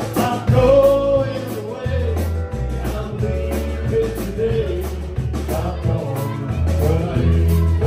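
Live band playing: electric guitars over a bass line and drum kit, amplified through the room.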